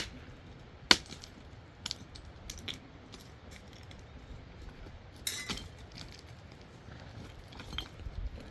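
Sharp, irregular clicks and knocks of stone striking stone, one every second or so, with a louder short cluster of knocks about five seconds in.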